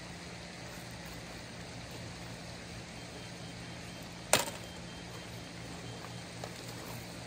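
A steady low hum with one sharp, loud knock a little over four seconds in.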